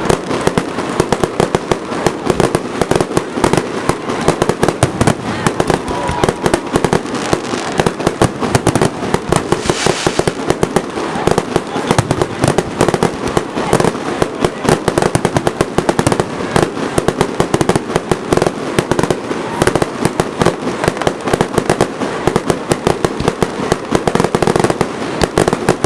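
Aerial fireworks going off in a dense, continuous barrage of sharp bangs and crackles, many per second, with no let-up.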